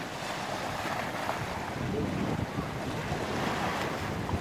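Steady wind buffeting the microphone over choppy bay waves splashing against a concrete seawall.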